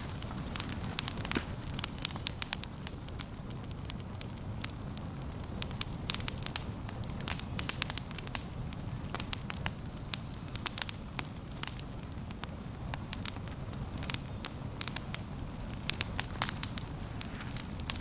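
Wood campfire crackling, with many sharp irregular pops over a low steady hiss of burning.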